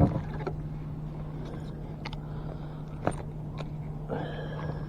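Handling noises while a small smallmouth bass is reeled in and landed: a sharp knock at the start, another about three seconds in, faint clicks, and a brief rustle near the end, over a steady low hum.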